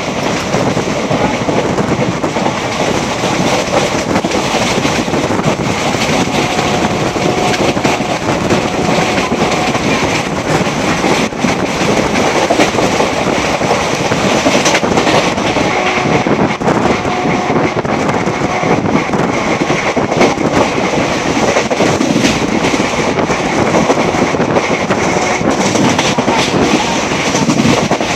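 Indian Railways passenger train running at speed, heard from an open coach door: a steady rush of wheels on the rails and air, with repeated clicks and rattles as the wheels pass over rail joints.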